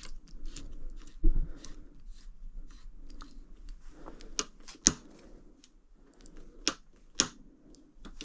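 Irregular small clicks and ticks of a screw being tightened by hand with a regular screwdriver while fitting a motorcycle clutch lever. The sharpest click comes about five seconds in.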